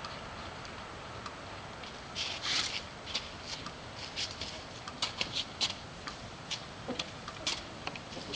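Steady low background noise with no rooster crowing, broken from about two seconds in by a string of irregular short clicks and ticks.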